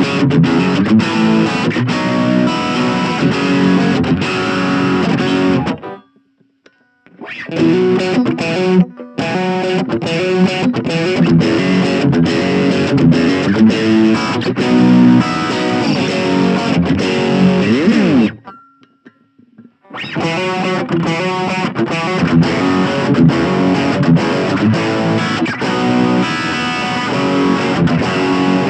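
Suhr Classic Pro electric guitar played through the overdrive channel of a Blackstar Fly 3 mini amp: distorted chords and riffs, stopping briefly about six seconds in and again for a couple of seconds near two-thirds of the way through before picking up again.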